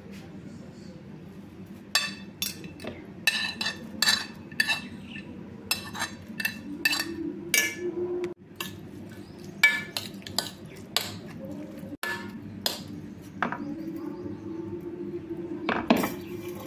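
A steel spoon clinking and scraping against a stainless steel pan while stirring thick chutney. The clinks are sharp and irregular, coming in quick runs, over a steady low hum.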